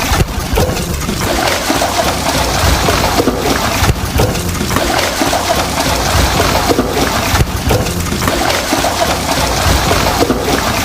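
Washing machine in its wash cycle, water sloshing and churning in the turning drum, with brief breaks about every three and a half seconds.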